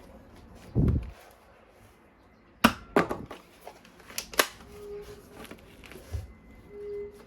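Sharp plastic clicks and snaps from toy guns being handled, with a low thud about a second in.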